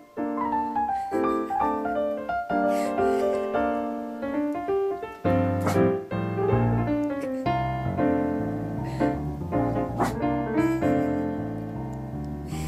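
Piano music with a melody of short notes; a bass line joins about five seconds in.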